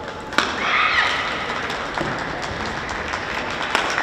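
A sharp racket strike on a badminton shuttlecock about half a second in, then a shout and clapping from the hall as the rally ends, with a few lighter taps after.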